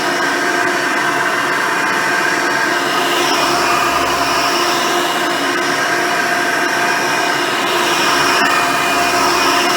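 Hoover Decade Elite Soft and Light upright vacuum cleaner running on its single-row brush roll while vacuuming. The motor runs loud and steady, its tone shifting slightly every few seconds.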